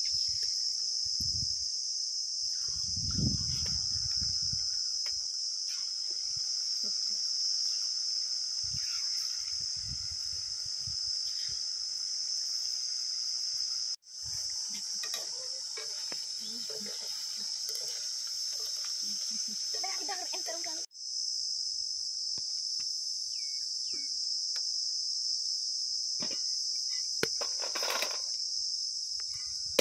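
Insects, crickets or cicadas, chirring steadily in a high-pitched drone, cut off twice for an instant.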